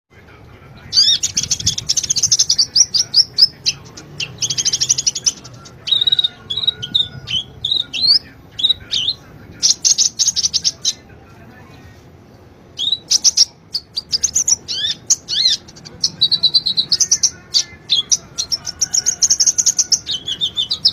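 A sunbird (konin, 'kolibri ninja') singing vigorously in fast, high trills and sharp chirps, delivered in bursts. There is a pause of about two seconds near the middle.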